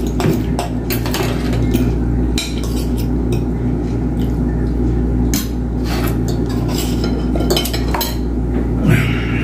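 Forks and spoons clinking and scraping on plates as people eat, in scattered short clicks over a steady low hum.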